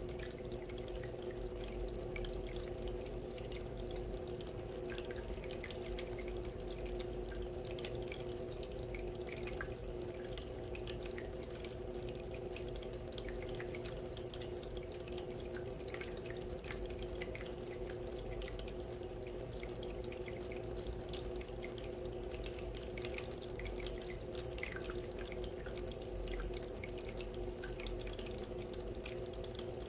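Small decorative water fountain running steadily: water trickling and dripping, with many little droplet splashes over a steady hum.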